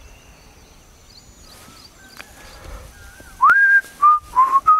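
Quiet outdoor background with faint high chirps. About three and a half seconds in, loud whistling begins: a note slides up and is held, then three shorter notes follow at slightly different pitches.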